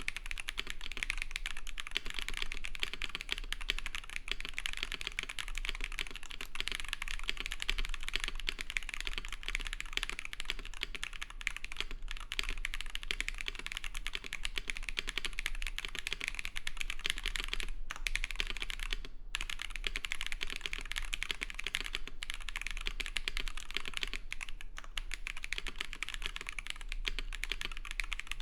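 Continuous fast typing on a mechanical keyboard with lubed dk Saru tactile switches in a KBD67 Lite R3 with a polycarbonate plate and GMK keycaps: a dense run of crisp, clacky keystrokes. The typing breaks off twice, briefly, about two-thirds of the way through.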